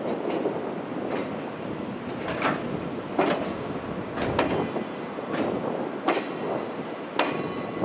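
Freight train wagons rolling slowly past, their wheels knocking over rail joints about once a second over a steady rumble.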